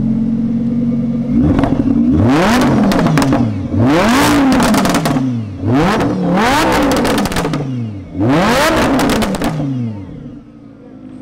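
Supercharged Lamborghini Huracan V10 with a custom-tuned VF Engineering exhaust, revved hard from idle four times, each rev rising and falling with crackles, then settling back to idle.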